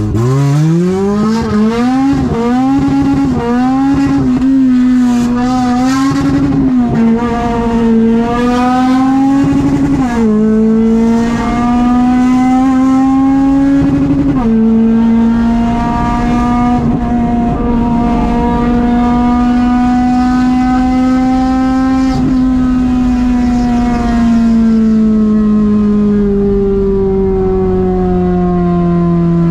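Car engine under acceleration: the revs climb quickly and waver, drop sharply twice at what sound like upshifts, hold steady, then slowly fall away near the end as the car eases off.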